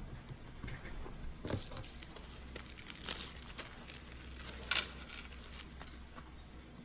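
Hands working on an open laptop during a RAM upgrade: light rustling and scattered small clicks, with one sharp, louder click about three-quarters of the way through.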